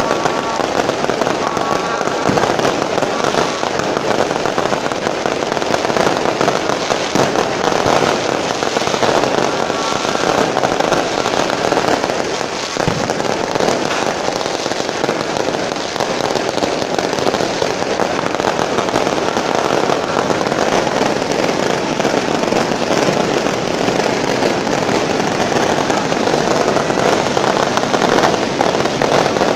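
Many fireworks going off in quick succession: a dense, unbroken crackling and banging with no pause between bursts.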